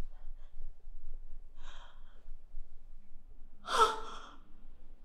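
A woman's breathing: a faint breath about a second and a half in, then a sharp, loud gasp near the end.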